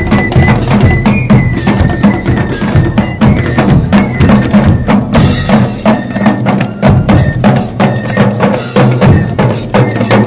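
A drum corps of double-headed barrel drums beaten with sticks, playing a fast, steady beat of several sharp strikes a second. A brief brighter, hissing hit comes about halfway through.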